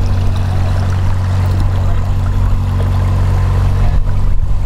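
Canal narrowboat's diesel engine running steadily as the boat passes close by at low speed.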